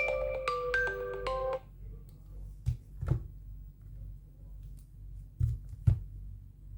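iPhone alarm tone playing a quick run of bright melodic notes from the phone's speaker, stopping about a second and a half in. Then come four soft knocks in two pairs, each pair about half a second apart.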